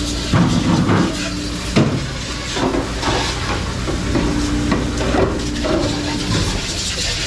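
Dishwashing clatter: dishes and metal pans knocking and clanking at irregular moments over a steady hiss.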